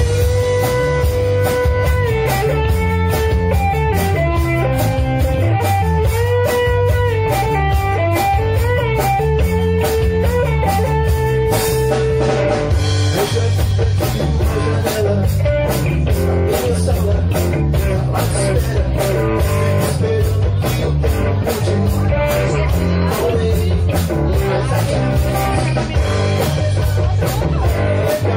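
Live rock trio playing an instrumental passage: electric guitar and bass guitar over a drum kit's steady beat. Through the first half the guitar plays long held lead notes with bends, after which the playing grows denser.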